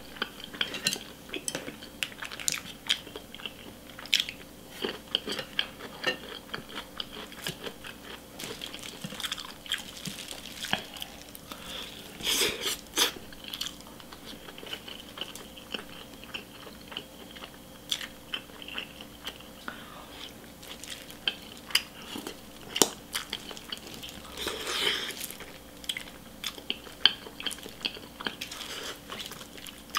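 Close-miked chewing and biting of grilled chicken leg and omelette rice: many short, sharp mouth clicks, with a couple of denser, noisier stretches of chewing.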